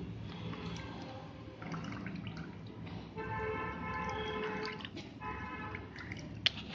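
Wooden spatula pressing wet milk curds, made with vinegar, against a plastic strainer, with whey dripping and squelching out as it drains. A steady pitched tone sounds twice midway, first for about a second and a half, then briefly, and there is one sharp click near the end.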